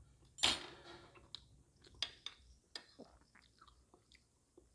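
Close-up eating sounds: a brief noisy scrape about half a second in, then scattered soft clicks of chewing and of a metal spoon against a ceramic plate while scooping silkworm pupae.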